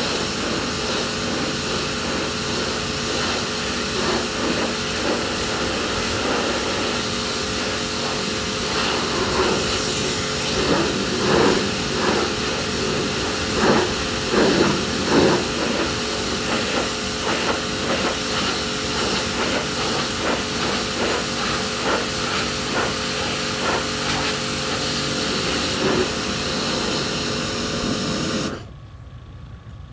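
Electric pressure washer running, its motor and pump humming steadily under the hiss of the water jet spraying a boat deck, the spray surging louder and softer through the middle. The machine stops suddenly near the end.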